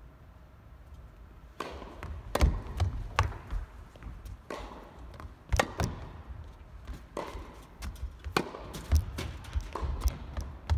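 Tennis rally on an indoor court: a run of sharp knocks from rackets striking the ball and the ball bouncing, starting about one and a half seconds in after a quiet start.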